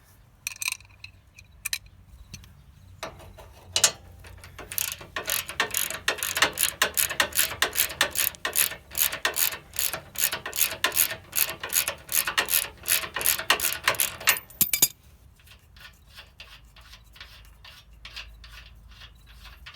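Socket ratchet wrench clicking as the nut is run off a factory cam bolt on a lower control arm. A few clicks come first, then a long stretch of fast, loud ratcheting that drops to fainter, slower clicks near the end.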